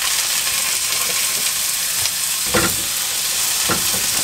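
Tomato quarters sizzling loudly in hot oil in a frying pan beside scrambled egg, with a spatula knocking against the pan twice as they are moved about.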